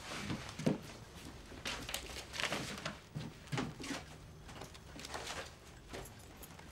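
Irregular soft knocks and footsteps of a person moving about a small room, with rustling of a coat and shoulder bag and things handled at a desk.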